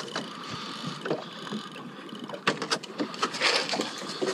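Small waves sloshing and lapping around a fishing kayak on choppy sea, with a run of sharp clicks and knocks from about halfway through.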